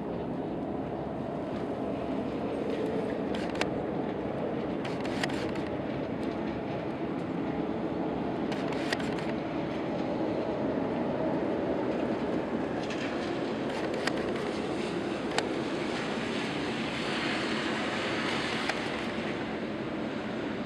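A steady low rumbling drone, the unexplained 'strange noise', with a few sharp clicks scattered through it and a brief hissy swell near the end.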